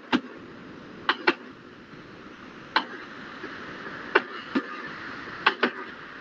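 Computer mouse clicking: short sharp clicks, several in quick pairs, about one every second, over a faint steady hiss.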